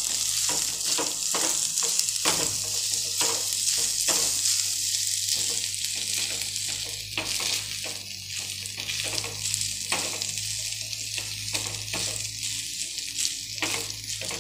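Cooked rice and vegetables sizzling in oil in a nonstick pan while a silicone spatula stirs and tosses them, with irregular scraping and tapping strokes several times a second. A steady low hum runs underneath.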